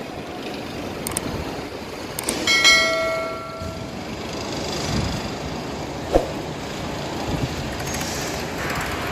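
A horn sounds once for about a second, about two and a half seconds in, over a steady background rumble with a few short knocks.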